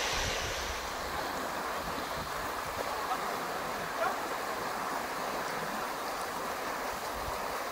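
Fast mountain river rushing over rocks and rapids: a steady, even rush of water.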